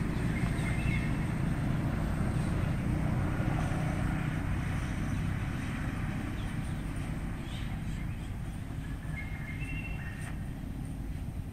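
Steady low rumble, with a bird chirping briefly about a second in and again near the end.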